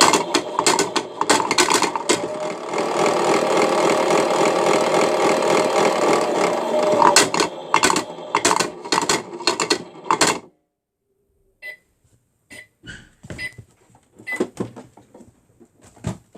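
Battery-powered toy washing machine running, its small motor humming steadily under a dense rattle and clatter, until it cuts off abruptly about ten seconds in. After that come scattered short clicks and a few brief high beeps.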